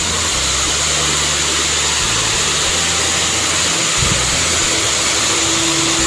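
Waterfall rumbling: a steady, loud rush of falling water, with one soft low thump about four seconds in.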